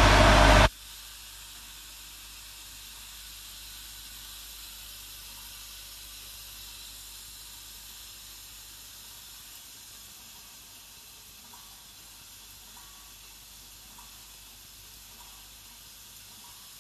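Loud music that cuts off abruptly within the first second, then a faint, steady hiss with a few faint, irregular ticks in the second half.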